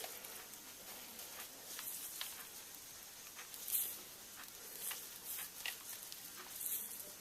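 Faint scattered clicks, light taps and short scrapes of small parts and tools being handled while rear suspension parts are fitted on a 1:8 nitro RC buggy.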